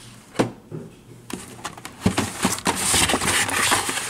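Hands handling carded die-cast toy cars in a cardboard case: plastic blister packs and card backs rustling and clicking against each other and the cardboard. A single knock comes about half a second in, and continuous rustling starts about a second and a half in.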